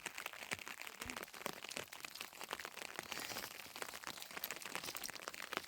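Rain pattering, heard as a dense run of irregular light ticks over a steady hiss.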